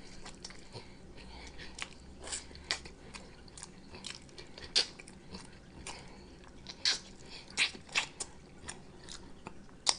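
Close-miked chewing and biting, with irregular wet mouth clicks and smacks, the loudest near the middle and end.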